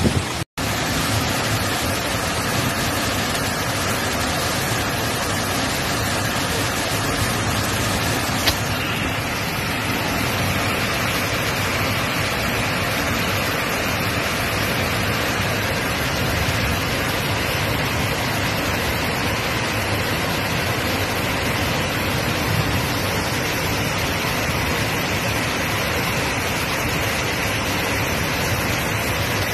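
Steady, dense rushing noise of a heavy rainstorm. There is a brief dropout about half a second in and a single click around eight seconds, after which the sound changes slightly.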